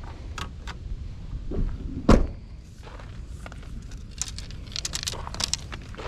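A vehicle door shut with a single loud thunk about two seconds in, then a quick run of clicking and jangling like keys or gear being handled, over a low steady rumble.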